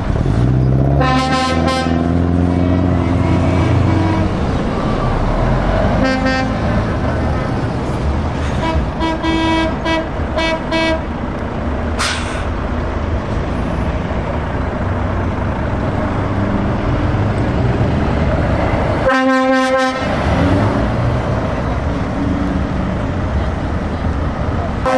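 Heavy trucks' diesel engines rumbling as they pull away, with truck horns sounding several times: a blast about a second in, a short one a few seconds later, a quick run of toots a little before halfway, and a loud blast about three quarters of the way through.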